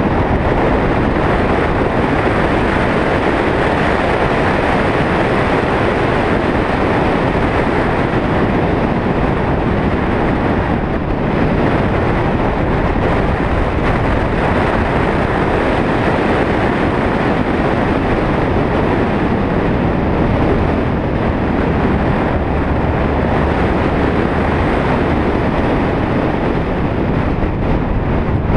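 Steady rush of wind and road noise from a moving vehicle, heard on a mounted action camera's microphone; a deeper low rumble builds over the last third.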